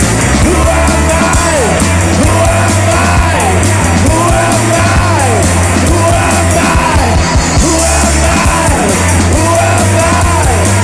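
Rock band playing loud: steady bass and drums under a lead line that rises and falls in pitch about once a second.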